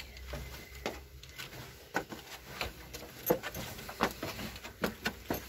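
Footsteps scuffing and knocking on stone steps and earthen floor in a narrow underground tunnel, irregular, about one every second or less.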